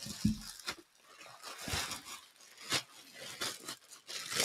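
Plastic packaging bags crinkling and rustling in intermittent handfuls, with soft low thumps near the start and about two seconds in.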